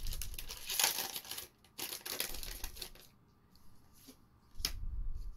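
Foil wrapper of a Magic: The Gathering Battlebond booster pack crinkling and tearing as it is ripped open, for about the first three seconds. Then it goes quieter, with a sharp tap near the end as the cards are handled.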